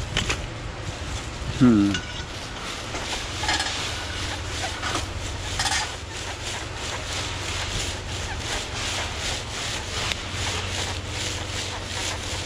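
Rustling and crackling of ivy and leaf litter underfoot and against a metal detector's coil as it is swept along the ground, with a low steady rumble underneath. A short falling vocal grunt about two seconds in.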